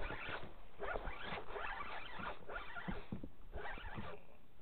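Fishing reel being cranked steadily, a repeated whirring rasp about three strokes a second, as a hooked lake trout is reeled up from deep water.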